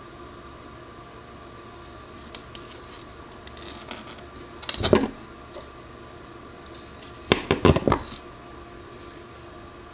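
Small hard parts knocking and clinking as they are handled on a workbench: one clatter about five seconds in and a quick cluster of knocks around seven to eight seconds, over a steady faint hum.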